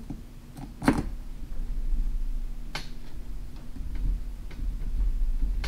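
Small metal clicks and taps of beadlock ring screws and a tool against a metal RC beadlock wheel as the screws are started. One sharp click comes about a second in and another near three seconds, with fainter ticks between.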